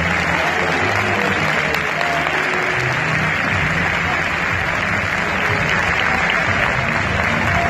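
Large stadium crowd of football supporters clapping steadily, with voices singing and chanting under the applause.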